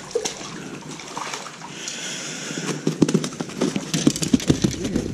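A hooked crappie splashing at the water's surface as it is brought to the net, then a run of short knocks and clatters as the landing net with the fish comes aboard the boat.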